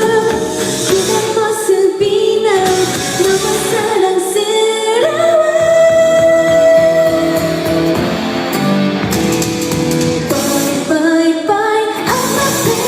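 Female pop singer singing live over instrumental backing. She holds one long note about five seconds in.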